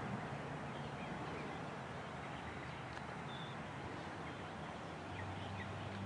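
A distant freight train's low rumble fading away, with birds chirping. A low diesel engine drone comes up near the end.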